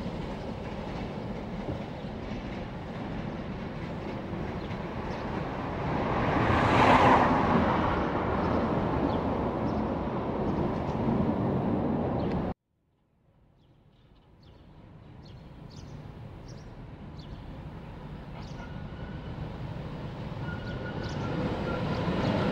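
Brussels trams running on their track. One tram's running noise swells to a peak about seven seconds in and carries on until it cuts off abruptly about halfway through. Then a second tram approaches, growing steadily louder, with scattered small clicks.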